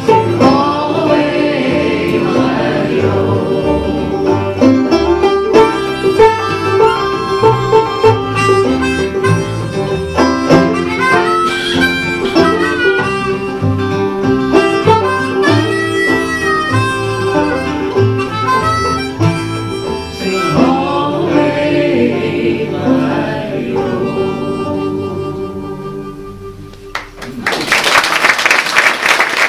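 Acoustic folk band playing the end of a song, with plucked strings and harmonica; the music stops about 27 seconds in and audience applause breaks out.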